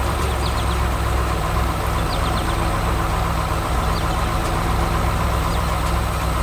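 Heavy construction-machine engine idling steadily with a low, even rumble.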